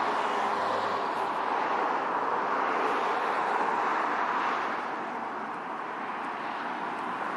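Traffic passing on a highway: a steady rush of tyre and engine noise that eases off about five seconds in.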